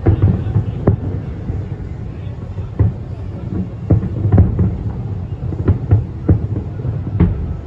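Fireworks going off: an irregular series of sharp bangs and booms, several a second at times, over a continuous low rumble.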